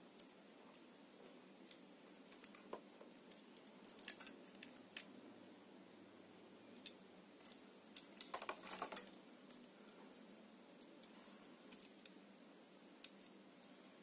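Faint clicks and taps of a clear plastic 120 mm PC case fan being handled in the fingers, its frame and cable knocking lightly. A quick cluster of clicks comes about eight to nine seconds in, over near silence.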